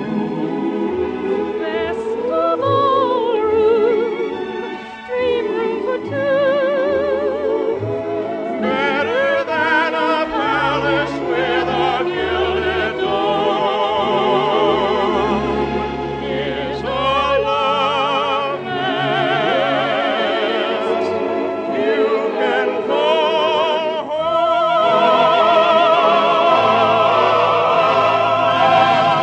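Operatic-style voices singing a show tune with a studio orchestra, the singing heavy with vibrato, on an early-1950s radio broadcast recording. It swells to a louder, fuller close in the last few seconds.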